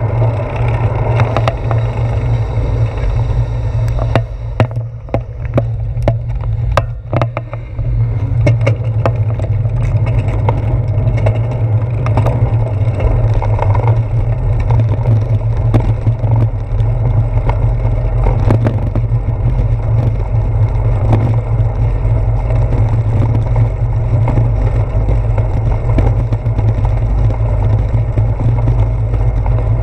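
Steady rumble of a bicycle rolling along, picked up through a handlebar-mounted action camera: wind on the microphone and road vibration, with the tyres running over brick pavers for much of it. A cluster of sharp clicks and rattles comes about five to eight seconds in, where the rumble briefly drops.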